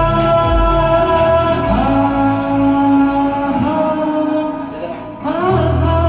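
A man singing long held notes over backing music; a steady low bass note comes in near the end.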